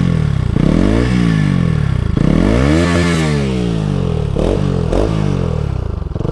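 Bajaj Pulsar RS200's single-cylinder engine, run with no exhaust fitted, revved about five times in quick succession, its pitch rising and falling with each throttle blip.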